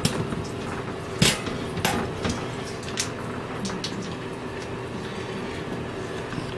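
Steady hiss and hum in a small room, broken by a few sharp knocks and clicks, the loudest about a second in.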